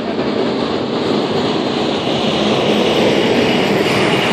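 Fire trucks driving past close by on a dirt road: heavy truck engines running and tyres rolling over the dirt in a steady, dense rumble that grows louder near the end as another engine comes up.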